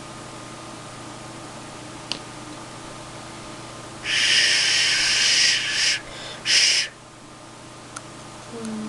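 Breath blown through a hand-modelled clay duck whistle being tuned: a breathy, airy whistle lasting about two seconds, then a second short blow.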